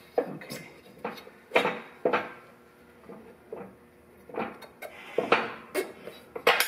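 Irregular metallic clinks and knocks as the steel housing and clamp ring of a truck spring park-brake chamber are handled and fitted by hand onto its new diaphragm.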